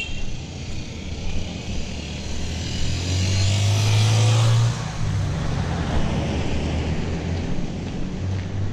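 A motorcycle passes close by, its engine hum and tyre noise building to a peak about four seconds in and then dropping away, with other vehicle engines running steadily in the background.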